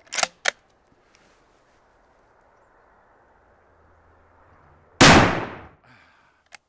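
Two sharp metallic clicks as the rifle's bolt is closed, then about five seconds in a single very loud shot from a .600 Overkill big-bore rifle firing a 1004-grain cast lead bullet, the boom dying away over about a second.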